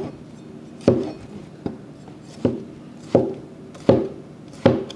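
Cleaver chopping a tomato on a cutting board: six sharp knocks of the blade hitting the board, evenly spaced about three-quarters of a second apart.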